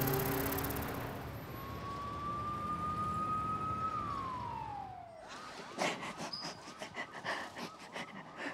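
Police siren over city traffic: one long slowly rising wail that drops away about four seconds in, then a fast repeated warble for the last few seconds, mixed with sharp knocks. Background music fades out in the first second.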